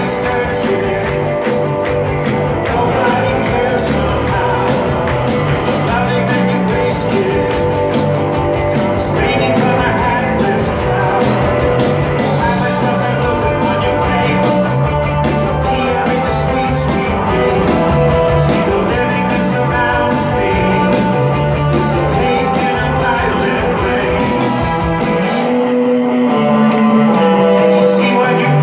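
Rock band playing live with electric guitars, bass and drums, heard loud from within the audience of a concert hall. Near the end the beat drops out for a few seconds, leaving a held guitar note, before the full band comes back in.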